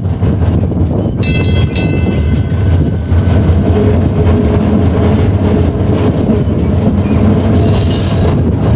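Streetcar running along its track, heard from an open side window with wind on the microphone: a steady low rumble with a humming whine in the middle. Two short high rings come about a second in, and a high squeal near the end.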